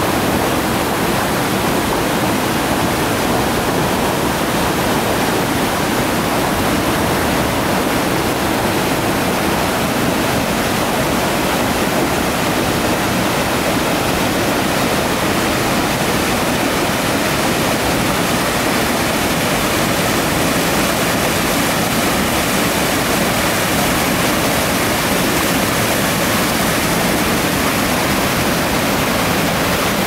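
Mountain stream swollen with snowmelt and rain, rushing over boulders and through rapids: a loud, steady wash of water.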